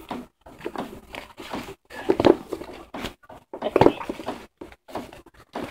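Close handling noise as a baby doll is dressed: cloth rustling and scuffing in short irregular bursts, with two louder bumps about two and four seconds in.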